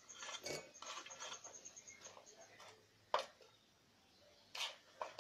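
Sliced onion pieces patter and rustle as they drop by hand into a steel mixie jar. Two short, sharp clicks follow, one about three seconds in and one near the end.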